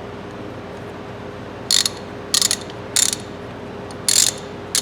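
Freshly greased, reassembled Craftsman Flying V 3/8-inch ratchet being worked, its pawl clicking over the gear in five short runs of clicks beginning about a second and a half in.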